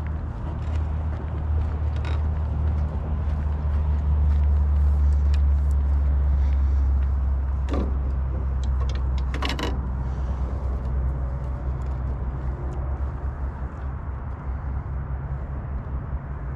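Wind buffeting the microphone: a loud, deep rumble that swells for a few seconds near the middle, with a few sharp clicks partway through.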